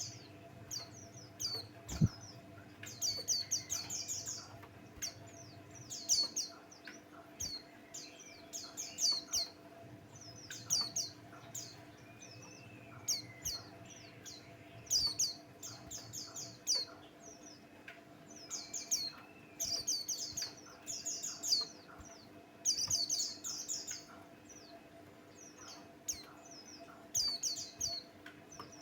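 A white-eye singing in busy, quick bursts of high, thin chirps, phrase after phrase with short gaps, over a faint steady hum.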